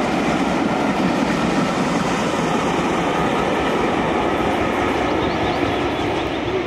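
Passenger coaches of a steam-hauled train rolling past close by, the locomotive coasting: a loud, steady rumble of wheels running on the rails.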